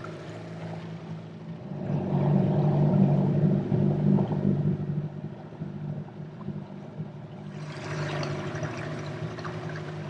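Small outboard motor running steadily as the dinghy moves through the water, louder for a few seconds starting about two seconds in.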